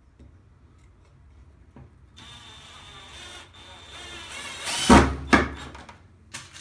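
Cordless drill driver driving a screw into a timber batten: the motor runs steadily with a high whine for a couple of seconds, drops in pitch, and ends in two loud knocks about five seconds in.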